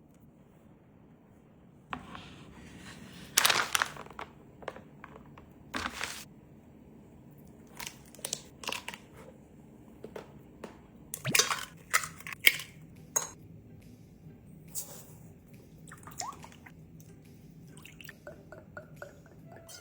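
Irregular crunches, clicks and wet squishes of hands-on food preparation in a kitchen, starting about two seconds in and coming at uneven intervals.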